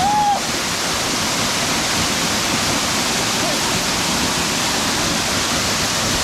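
Small waterfall, water falling into its pool with a steady, even rushing noise.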